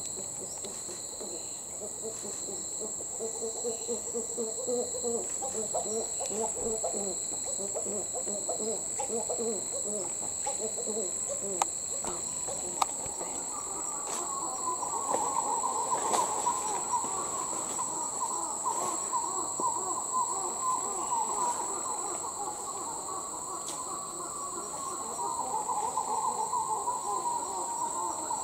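Titi monkeys, taken for dusky titis, giving their loud territorial call: a long run of rapid, low hooting notes that about halfway through gives way to a higher, denser chorus of notes. A steady high insect drone runs underneath.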